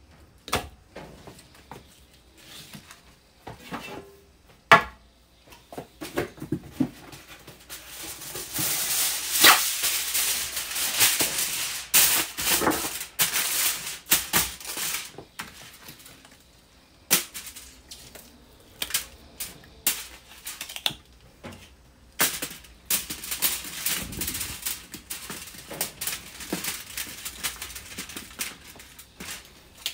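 Aluminium foil crinkling and crackling as it is handled and folded, in two long stretches, with scattered knocks and taps on a wooden cutting board.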